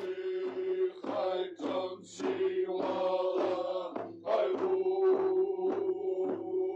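Music: voices singing a chant-like song, with sustained notes over a regular beat about twice a second.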